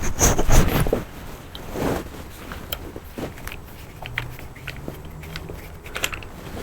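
Hand tools and a spark plug being handled: rubbing and rustling for about the first second, then scattered small metal clicks, with a faint low buzz in the second half.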